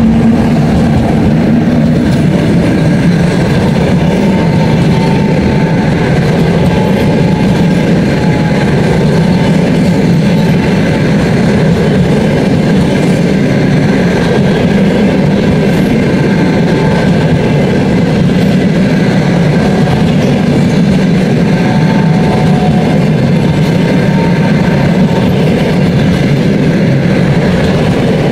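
A train of long-distance passenger coaches rolling past at speed, a loud, steady noise of steel wheels running on the rails.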